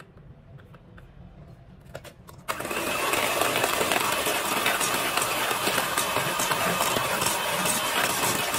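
A few faint knocks, then about two and a half seconds in an electric hand mixer switches on and runs steadily, its wire beaters whirring through a thick creamed butter mixture in a stainless-steel bowl.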